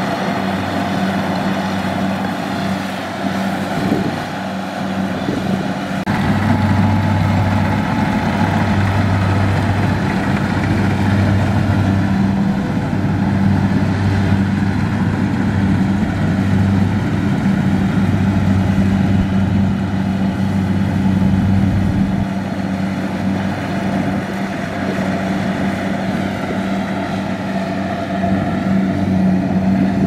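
Kubota DC-70 rice combine harvesters' diesel engines and machinery running steadily while harvesting rice, a loud continuous drone with a deeper hum that comes and goes through the middle.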